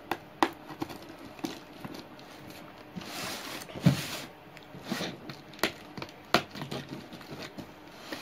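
A ballpoint pen tip jabbing and scraping at the packing tape on a cardboard box, making sharp clicks and taps every second or so. Around three seconds in there is a longer rasping rustle as the tape is torn and the box is turned over.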